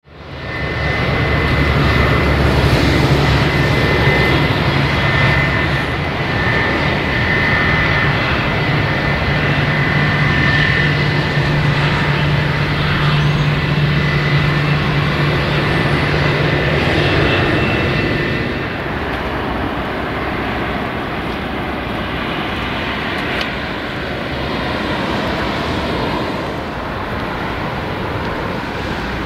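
Airbus A320 jet engines at taxi thrust: a steady high whine over a low hum. About 18 seconds in the whine drops away, leaving a quieter, more distant engine noise.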